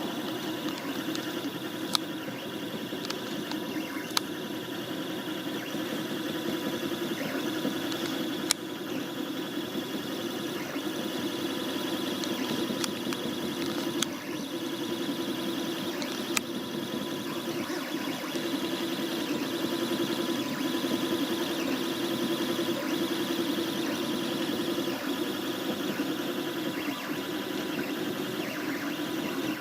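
HyperCube 3D printer's stepper motors whining steadily as it prints, with a few sharp ticks along the way.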